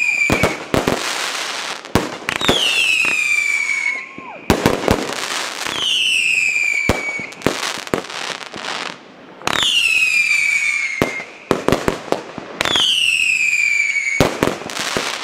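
Aerial fireworks going off in quick succession: sharp bangs and crackling, with four whistles that each fall in pitch over about a second and a half, roughly one every three seconds.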